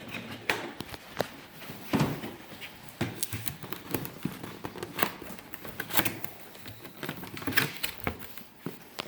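Cardboard box being opened and handled: an irregular string of sharp knocks, clicks and scrapes with rustling in between.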